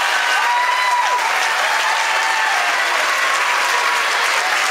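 Audience applauding steadily, with a few high voices calling out over the clapping.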